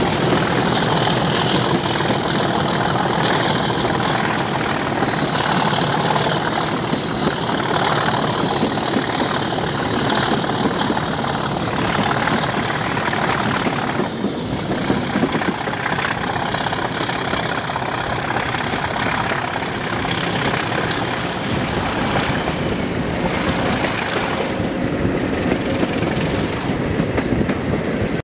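Class 37 diesel-electric locomotive working hard under power, its English Electric V12 diesel thrashing steadily over the rush of the moving train. A high turbocharger whistle runs above it and sinks slowly in pitch.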